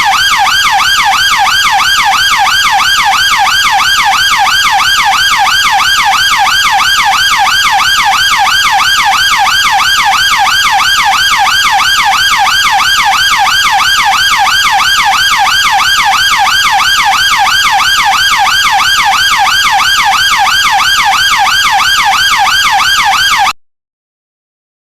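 British police siren on its yelp setting: a rapid, evenly repeating up-and-down sweep in pitch, several sweeps a second, that cuts off suddenly near the end.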